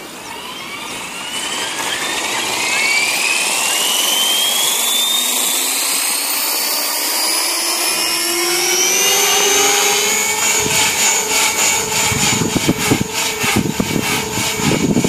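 JR Forza 450 RC helicopter spooling up: a whine that rises steadily in pitch for about ten seconds, then holds at head speed. A rougher, uneven rushing joins from about ten seconds in as it lifts into a hover.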